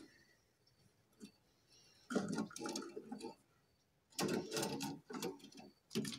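Light metallic knocks and rattles of a meat band saw's hinged metal cover being lifted and handled while the saw is switched off, in two short clusters after a couple of quiet seconds.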